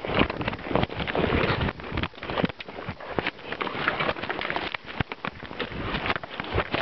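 Camcorder handling noise: dense, irregular knocks and rubbing against the microphone while the lens is covered.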